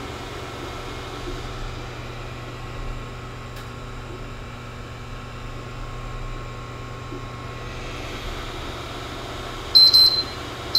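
Steady whirring hum of a Creality CR-10S Pro 3D printer's cooling fans, with two short, high electronic beeps about a second apart near the end.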